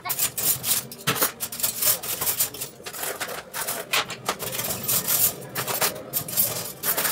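Cutlery and kitchen utensils clinking and clattering, lifted out of a wire dish rack and dropped into a kitchen drawer in a quick, irregular run of clicks.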